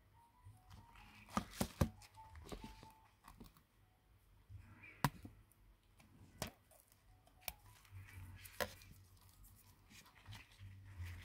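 Scattered light clicks and taps with soft rustling as the opened Sony Xperia 5 and its removed glass back panel are handled and set down; the sharpest clicks fall about five and six and a half seconds in.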